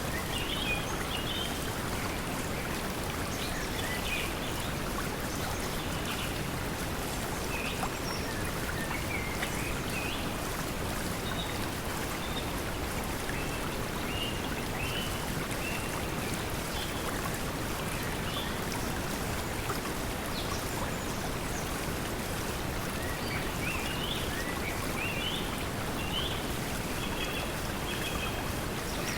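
Steady pink noise mixed with the sound of flowing water, with short bird chirps scattered over it, thickest near the start and again toward the end.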